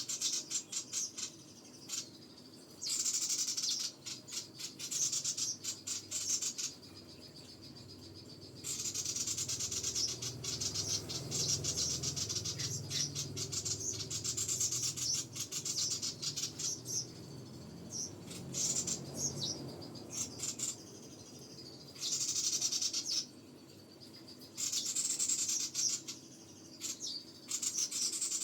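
Small songbird singing in long bursts of fast, high-pitched chattering twitters, phrases of a few seconds broken by short pauses.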